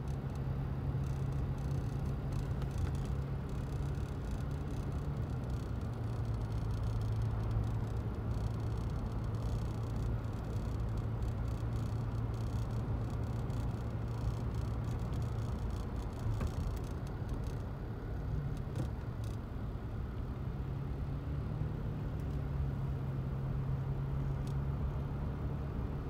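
Car driving along a road: steady engine hum and road noise, the hum dropping lower for several seconds midway and rising again later on.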